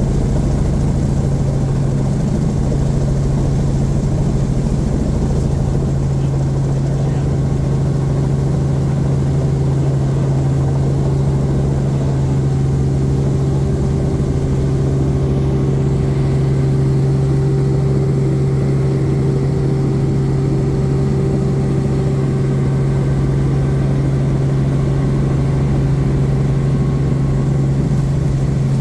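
Robinson R44 Raven II helicopter running steadily, heard from inside the cockpit: a loud, even drone of engine and rotors with one strong low hum.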